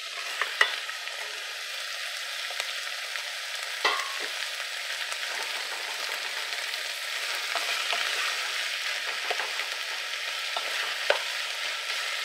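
Onions and freshly added chopped tomatoes sizzling in hot oil in an aluminium pot, stirred with a wooden spoon. A few sharp knocks against the pot stand out: about half a second in, near four seconds and near eleven seconds.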